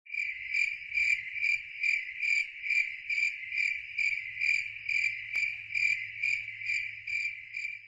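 Cricket chirping in an even rhythm of about two chirps a second.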